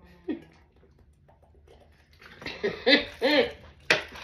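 A person's brief wordless vocal sound in two short rising-and-falling parts, about two and a half seconds in, followed by one sharp click near the end.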